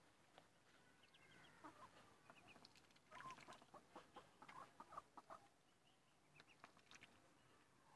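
Faint, scattered peeps and short calls from poultry: a group of Muscovy ducklings and the birds in the next pen, thickest in the middle.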